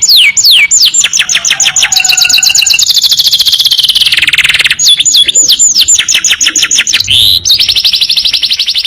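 Domestic canary singing loudly. Downward-sliding whistles come about three a second, alternating with long, very rapid trills: the long 'tembakan' bursts that bird keepers prize in a master song.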